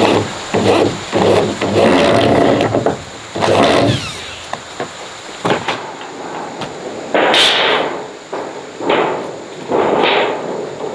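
A run of irregular knocks, bangs and scraping noises, like things being handled and struck during manual work, the loudest about seven seconds in; a faint steady high tone runs behind them.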